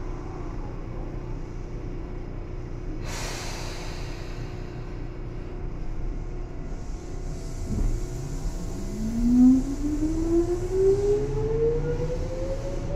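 Interior running sound of a Tobu 9000 series train: a steady low rumble, a short hiss of air about three seconds in, then from about eight seconds the armature-chopper traction motors starting to whine as the train pulls away, the tone rising steadily in pitch as it gathers speed.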